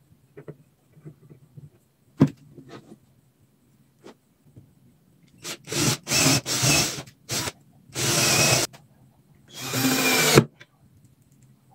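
A handheld power tool run on wood in short bursts: a few light knocks first, then about halfway through several quick runs followed by two longer runs of under a second each, with stops between them.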